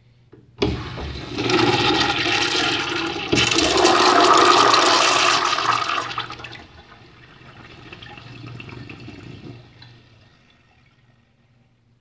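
Urinal flushed by its lever-operated flush valve. A sudden loud rush of water starts about half a second in and surges again a few seconds later. It drops to a quieter wash after about six seconds and fades out by about ten.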